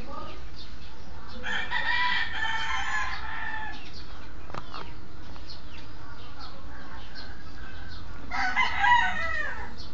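Two long, high-pitched animal calls, one about a second and a half in lasting about two seconds, the other near the end, falling in pitch as it finishes.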